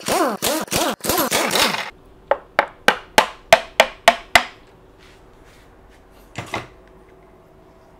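An impact wrench spins out the cylinder head bolts of a SEA-PRO T9.9S outboard in short whirring bursts that rise and fall in pitch, stopping about two seconds in. A quick run of eight sharp, evenly spaced taps follows, and a brief double knock comes past six seconds.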